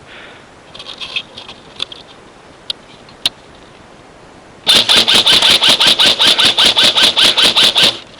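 Airsoft rifle firing a long full-auto burst close by, beginning a little over halfway in: a fast, even rattle of about seven shots a second, each with a short rising whine. Before it come a few faint clicks.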